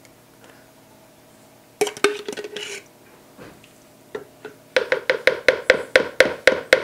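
A spoon clinking briefly, then near the end tapped rapidly against the rim of a bowl, about seven sharp ringing clinks a second, knocking off a heaping spoonful of minced garlic.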